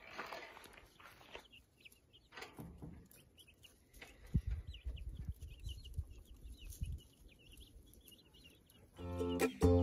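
Young chicks peeping in a run: many short, high cheeps, with a few low thumps in the middle. Ukulele music comes in loudly near the end.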